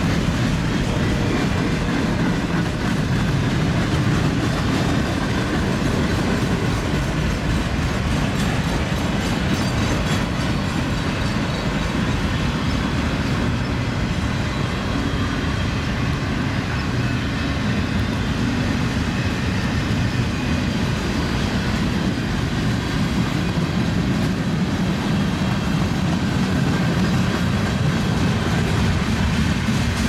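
Freight train of autorack and tank cars rolling past at steady speed: a steady low rolling noise of steel wheels on the rails.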